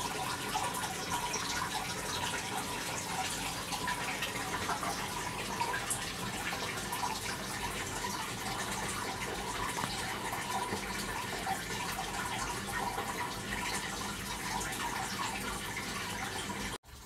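Steady trickling and dripping water in a tortoise enclosure just after a misting 'rain', cutting off abruptly near the end.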